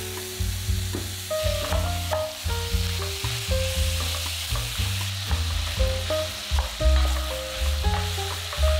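Ground beef sizzling as it fries in hot oil in a pot, stirred and broken up with a wooden spoon, over background music with a steady bass line.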